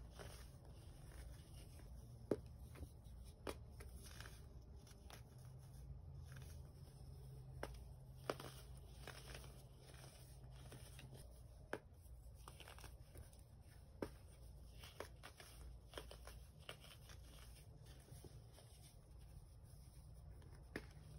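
Packed baking soda being squeezed and crumbled by hand in a plastic tub: faint, irregular crunching with scattered sharp crackles as the clumps break.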